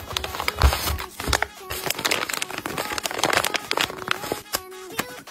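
Paper blind bags crinkling as hands shuffle them and squeeze a stuffed paper bag, with many quick, irregular crackles.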